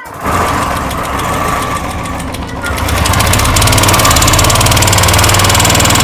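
Royal Enfield Classic 350 single-cylinder engine starting and running, with a rapid tick-tick from the top end, getting louder about three seconds in. The ticking is excessive; the mechanic suspects a hydraulic tappet damaged by running with too little engine oil.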